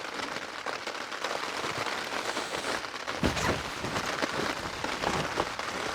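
Heavy rain falling steadily, with many separate drops striking close by. A single low thump comes about three seconds in.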